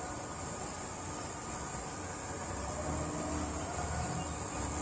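A steady, high-pitched chorus of insects. A faint low rumble of traffic comes in about halfway through.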